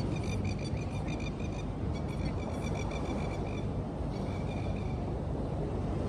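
Steady wind rumble on the microphone and surf along the shore. Over it come runs of rapid, high-pitched bird chirping that stop and start again twice.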